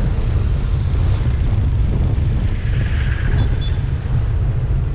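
Wind buffeting the camera microphone on a moving motorcycle, a steady fluttering rumble, with the motorcycle and road noise running underneath.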